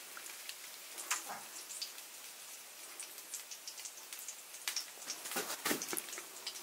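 Faint, irregular crackling and ticking from the hot, steaming lamb and flatbread dish, with a few louder clicks near the end as hands take hold of the enamel bowl.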